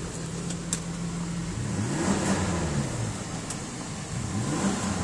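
2003 Ford Sport Trac's 4.0-litre V6 idling, then revved twice, its pitch rising and falling each time, about two and four seconds in, heard from inside the cab.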